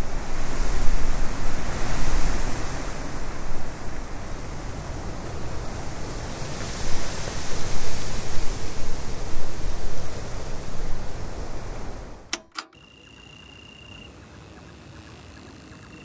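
Waves washing on a lakeshore, a steady rush of surf that swells and eases. About twelve seconds in it cuts off with a click to a much quieter ambience with a steady high, thin tone.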